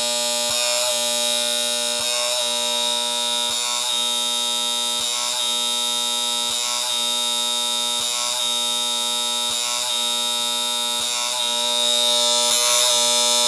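H&P FG3000B tower strobe running in day mode: a steady high-pitched whine and electrical buzz from its flash power supply, with a short snap from each flash about every one and a half seconds. The flashes come regularly now that the suspected bad film capacitor on its timing and trigger board has been replaced.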